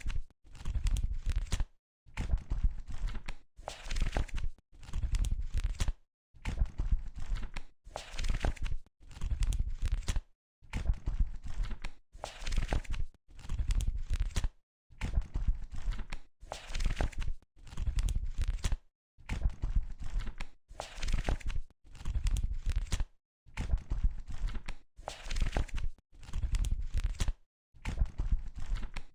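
Pages of a book being flipped one after another: a papery rustle and flap with each turn, repeating about every second or two with short silent gaps between.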